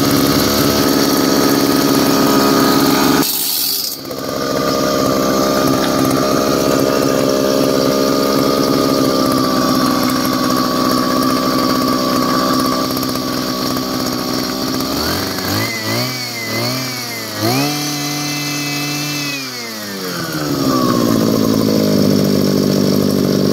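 Mitsubishi TL33 two-stroke engine on a portable water pump running steadily. About fifteen seconds in it is revved up and down several times and held high briefly, then it drops back to a steady idle.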